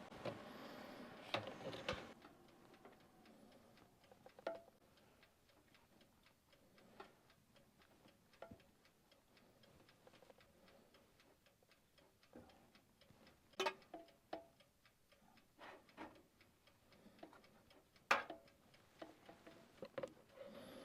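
Faint, steady ticking of a toaster oven's mechanical dial timer counting down while the steak cooks, about three ticks a second. A few louder clacks and knocks break in now and then.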